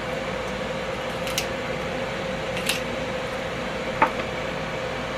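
Kitchen shears snipping through a raw chicken wing: a few short, sharp clicks, the loudest about four seconds in, over the steady hum of an air fryer's fan as it preheats.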